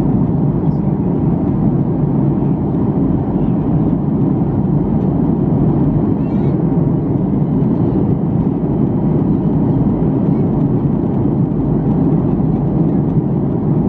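Steady low rumble of cabin noise inside a Boeing 737-800 in flight: its CFM56 jet engines and the airflow over the fuselage, even and unchanging.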